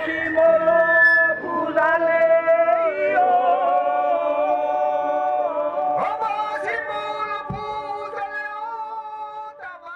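Unaccompanied Bajawa traditional ritual chant: voices holding long, drawn-out notes that waver and slide in pitch, fading out near the end.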